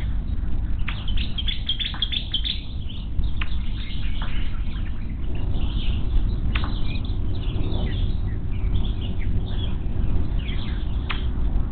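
Birds chirping: many short, high calls and quick downward-sliding notes scattered throughout, over a steady low rumble.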